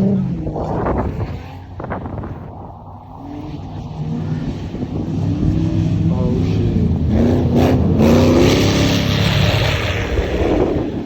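A vehicle engine revving hard, its pitch rising and falling again and again, loudest about eight seconds in, with a hissing noise over it near the end.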